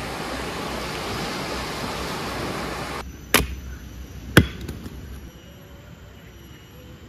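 Small waves washing onto a sandy beach, then two sharp chopping strikes about a second apart as firewood is split on a log chopping block, followed by faint outdoor background.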